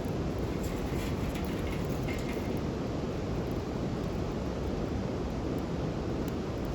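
Wood campfire burning: a steady low rush with a few faint crackles about one to two seconds in.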